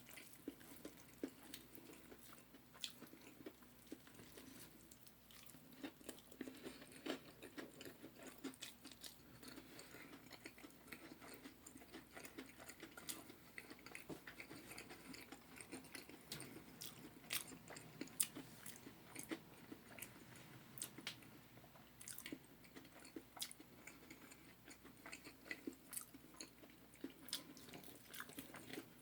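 Faint chewing and mouth sounds of a person eating fried chicken: irregular small smacks and crunchy clicks, close to the microphone.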